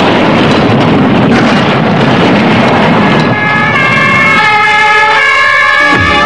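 Dynamite charge exploding: a loud blast whose rumbling noise carries on for about three seconds, then gives way to music with held notes that change in steps.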